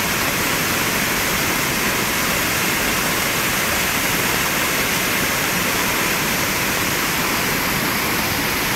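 Waterfall: a loud, steady rush of falling water with no change throughout.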